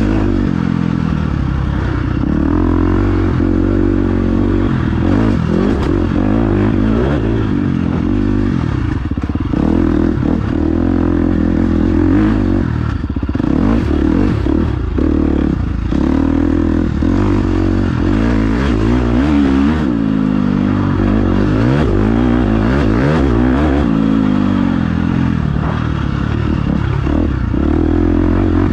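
Motorcycle engines revving up and down without a break, their pitch rising and falling over and over, with more than one engine sounding at once at times.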